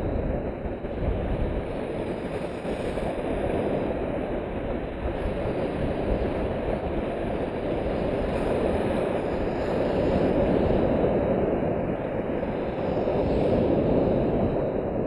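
Small surf breaking on the beach and washing in foam close by: a steady rushing that swells louder twice in the second half as waves come in.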